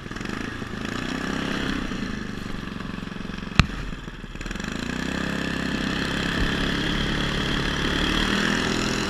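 Traktobike 440's engine running under load through deep snow, its revs rising and falling twice. There is one sharp knock about three and a half seconds in.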